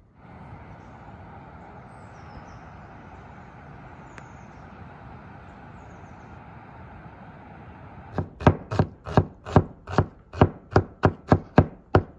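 Knife chopping onion on a wooden cutting board in quick, even strokes, about three a second, starting about two-thirds of the way in. Before that, a steady rushing noise.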